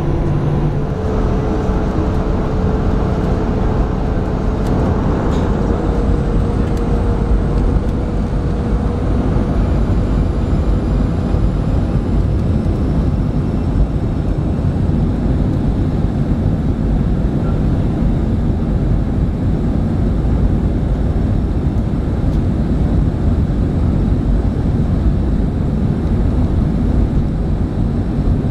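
Cabin noise inside a Boeing 737-300 taxiing: the CFM56 engines running at taxi power under a steady, deep rumble and hiss, with a faint whine in the first few seconds.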